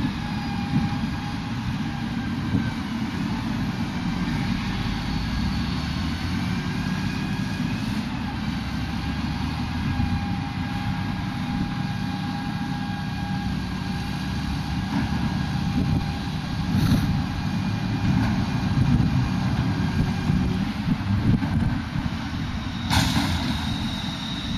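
Street traffic heard from high above: a truck and cars moving through an intersection, a steady low rumble with faint engine and tyre tones. A sharp click near the end.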